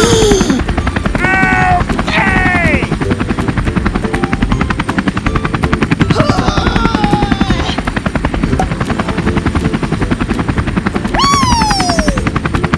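Fast, steady rotor chopping of a helicopter sound effect, with a few short cartoon-like squeaky calls sliding down in pitch laid over it: two about a second or two in, one around the middle, and a longer falling one near the end.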